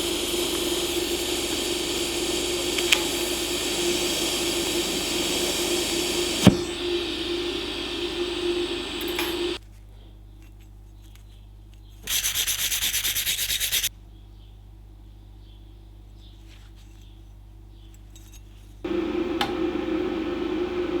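TIG welding arc from an inverter welder running with a steady hissing buzz. It stops about nine and a half seconds in. A short, loud burst of harsh hiss follows a few seconds later, and the arc hiss starts again near the end.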